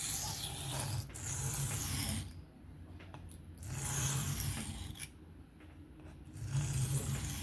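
Knife blade scraping across an Atoma 400 diamond sharpening plate in freehand sharpening strokes: a hissing, rasping grind that comes in passes of about a second, with short quieter pauses between them.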